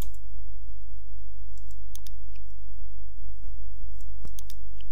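A few sharp clicks from a computer mouse and keyboard as a value is entered in software, scattered through and bunched together near the end, over a steady low hum.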